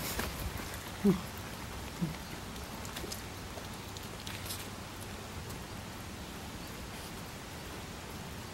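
A small shaggy dog nosing at an egg on a brick path, with two short low grunting sounds about one and two seconds in. After that a steady outdoor hiss holds, with a few faint ticks.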